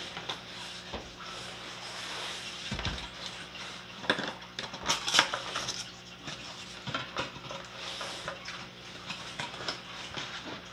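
A cardboard box being handled and tipped about: cardboard scraping and rustling, a dull thump about three seconds in, and a run of sharp knocks and clicks around four to five seconds in. A faint steady low hum sits underneath.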